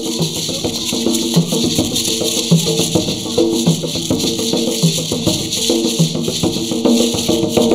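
Several maracas shaken continuously by children, giving a steady rattling hiss, along with a hand drum played by hand. Both play along with music that has a melody and a repeating bass line.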